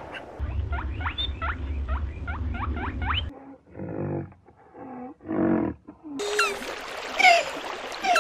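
A meerkat's quick rising chirps, about three a second. Then, after a break, three drawn-out calls from a rhinoceros. Near the end comes a noisy hiss with scattered short chirps.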